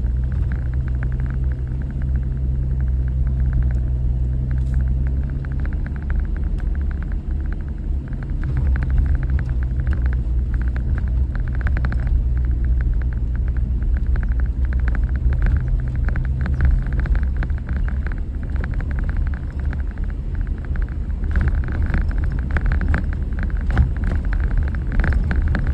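A Jeep driving slowly along a muddy dirt road: a steady low engine drone with a scratchy road and tyre noise that comes and goes and grows louder near the end.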